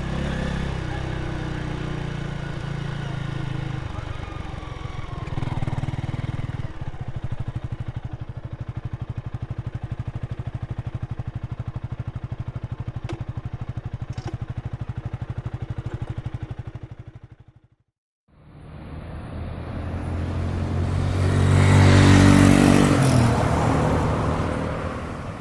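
Motorcycle engine revving with rising and falling pitch, then settling into a steady pulsing idle. It cuts off about 18 seconds in; then a motorcycle engine swells up to its loudest a few seconds later and fades away, as in a drive-by.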